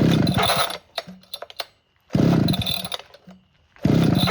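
Poulan 4900 CounterVibe chainsaw's 77cc two-stroke engine pull-started on choke three times, each pull a short rapid chuffing as the engine turns over without catching. It is not yet firing because it is not drawing fuel.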